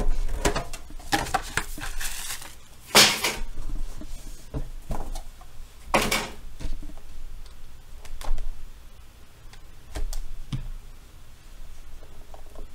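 A trading-card box being handled and opened: a black cardboard box is slid out of its green outer box and its lid worked open, with scattered taps and clicks and two short sliding scrapes, about three and six seconds in.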